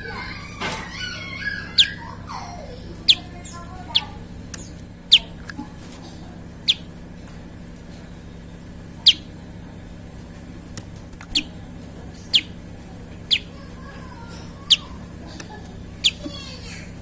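Prenjak (prinia) calling: a series of sharp, high notes that each fall quickly in pitch, about a dozen spaced roughly a second apart, with some softer twittering in the first two seconds. A steady low hum runs underneath.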